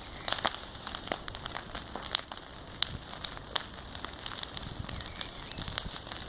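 A large wood bonfire burning: irregular sharp pops and crackles over a steady hiss of flame.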